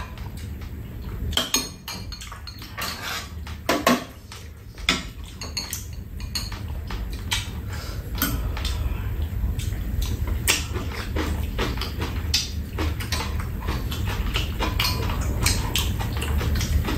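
Metal spoons and chopsticks clinking and scraping against bowls and a stainless-steel tray while eating, in scattered, irregular clicks over a steady low background rumble.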